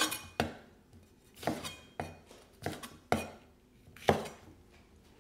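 Chinese cleaver slicing a red bell pepper on a thick round wooden chopping board: a series of about seven sharp knocks, unevenly spaced, as the blade cuts through the pepper and strikes the wood.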